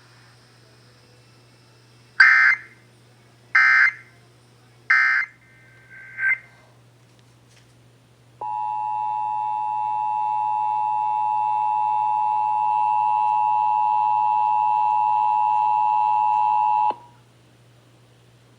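Emergency Alert System tones: three short bursts of SAME digital data tones about a second and a half apart, and a shorter chirp, then the two-tone EAS attention signal (853 and 960 Hz together), held steady for about eight and a half seconds before it cuts off. The data bursts come right after the test script ends, as the end-of-message code does.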